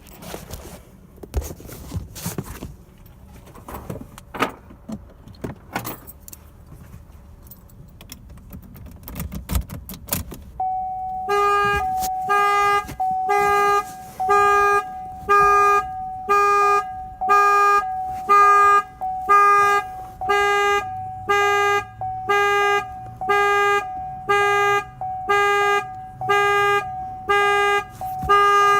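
Clicks and rattles of keys and plastic being handled, then an electronic beep that starts about ten seconds in and repeats about once a second over a steady tone.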